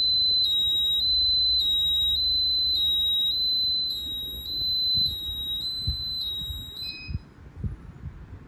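Fire alarm panel system sounding its alarm: a loud, high-pitched electronic tone that alternates between two close pitches about twice a second. It cuts off about seven seconds in, followed by a short beep and a few low knocks.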